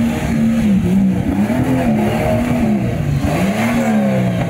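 An off-road Jeep's engine revving hard in about three surges, the pitch rising and falling, as the vehicle claws its way out of a river after being stuck, with water rushing and splashing around it.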